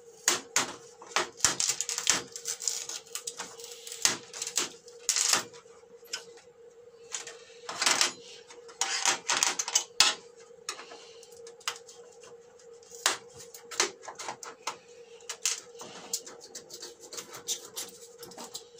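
Irregular clicks, taps and scrapes as an LG 47LA620V's aged LED backlight strips, glued down firmly, are pried and peeled off the TV's metal back tray by hand. A faint steady hum runs underneath.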